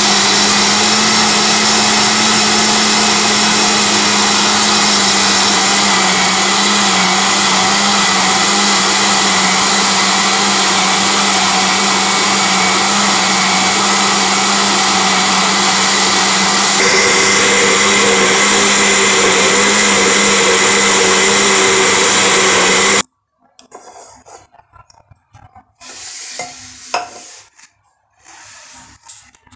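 Countertop blender running at full speed, blending a thick banana, avocado and milk smoothie, with a steady motor hum whose note shifts slightly about two-thirds of the way through. The motor cuts off suddenly, followed by a few light knocks and clatter as the jug is handled.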